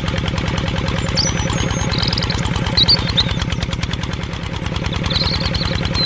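Tractor engine running steadily with a fast, even beat, with a few short high chirps over it.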